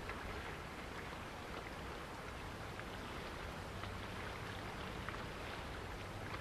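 Steady outdoor noise of wind and choppy water, with scattered faint ticks and small splashes.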